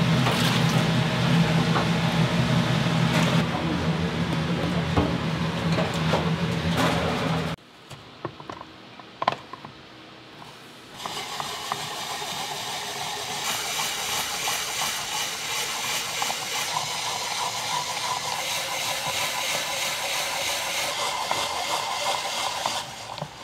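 Restaurant kitchen noise: a loud steady hum with a low drone that cuts off suddenly, a few clicks in a quieter stretch, then a steady hiss.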